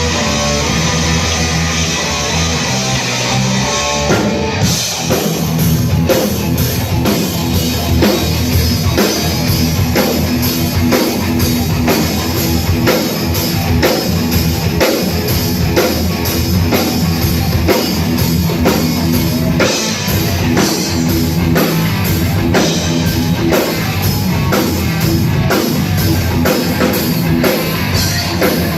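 Live rock band playing at a sound check: electric guitar on its own at first, then the drum kit comes in about four seconds in with a steady beat under the guitar.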